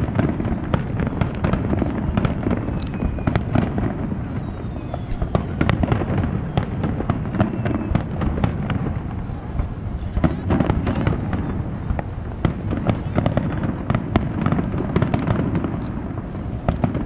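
Aerial fireworks display: shells bursting in a dense, unbroken run of sharp bangs and crackles over a continuous low rumble.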